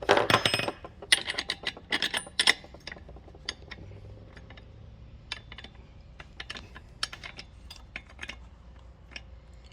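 Light metallic clicks and rattles from a 62cc chainsaw clutch being screwed back onto the crankshaft by hand. The clicks come thick and fast for the first two seconds or so, then thin out to occasional single clicks.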